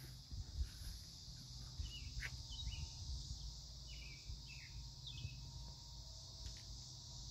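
Faint outdoor summer ambience: a steady high insect drone, with a bird giving short falling chirps several times, over a low steady hum.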